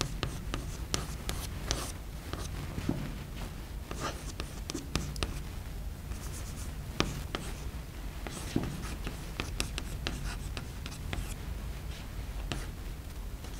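Chalk writing on a blackboard: a string of short taps and scratchy strokes as the chalk forms symbols, over a steady low room hum.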